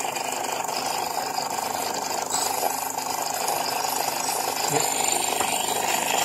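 Jura Impressa J5 espresso machine's pump buzzing steadily as it pushes out hot water.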